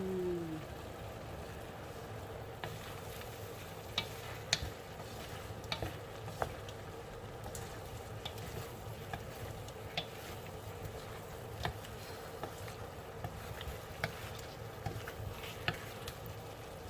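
Chicken wings sizzling in a pan while being stirred, with scattered sharp clicks and pops throughout.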